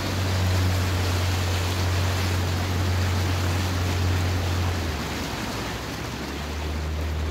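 Small boat's outboard motor running at low speed, a steady low hum under a constant rushing noise of wind and water. About five seconds in the engine note drops away briefly, then settles again a little lower.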